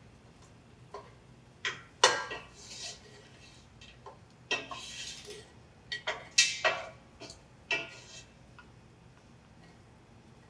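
A cooking utensil knocking and scraping against a pot as chicken pieces browning with garlic are stirred. There are a handful of separate sharp clinks, the loudest about two seconds in, and a short scrape about halfway through.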